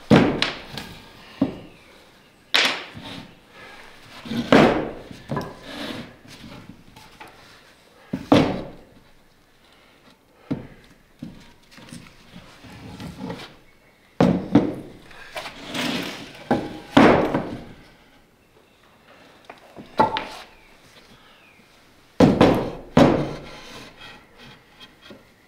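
2x4 lumber boards being handled and set down on a plywood worktable as a gate frame is laid out: irregular wooden thunks and knocks every few seconds, with quieter scraping between them.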